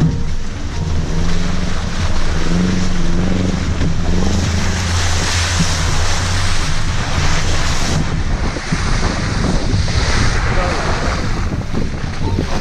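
Off-road vehicle engine running, its revs rising and falling in the first few seconds, under heavy wind buffeting on the microphone and a hissing rush that swells twice.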